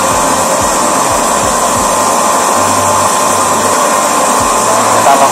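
Hydraulic plate-shearing machine's pump motor running with a steady whir and a thin steady tone.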